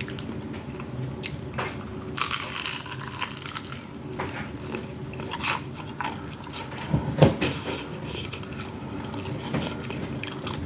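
Close-miked eating sounds: a person chewing and biting food, with a louder single bite or knock about seven seconds in.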